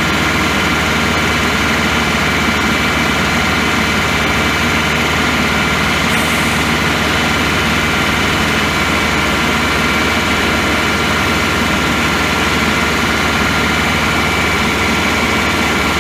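Caterpillar 3208 V8 diesel of a crane truck running steadily while the boom is moved, with a steady high whine on top of the engine.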